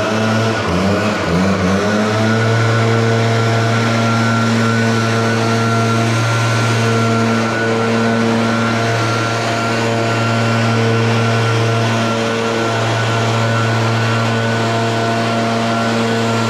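Pressure washer's motor running steadily with a loud, even hum. It winds up to speed in the first couple of seconds, and its pitch sags briefly a few times as the load changes.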